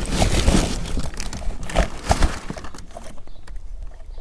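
Rustling packaging and clattering knocks as boxed reels and fence wire are handled and lifted out during unboxing, busiest for the first few seconds and then sparser.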